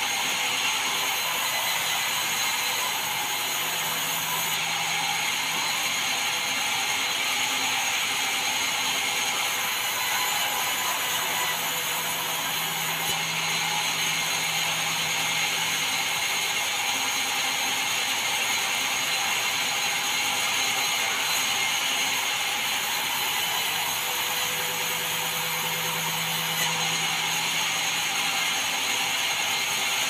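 Large band sawmill running, its blade sawing red meranti boards with a steady, even noise. A low hum comes and goes a few times.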